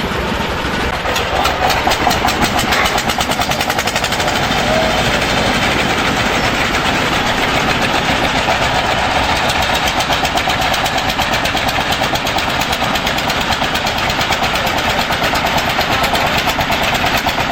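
Diesel engine running steadily and loudly, with a fast, even pulse of firing strokes.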